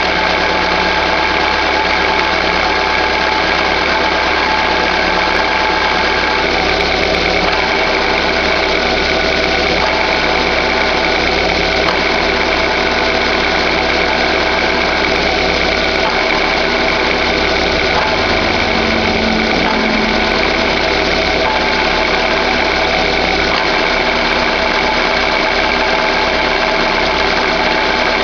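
Chevrolet Classic engine idling steadily, with a constant bearing-like noise from the clutch area that the owner hears whenever the clutch pedal is released; it has persisted despite a new release bearing and clutch. The pitch shifts slightly about two thirds of the way through.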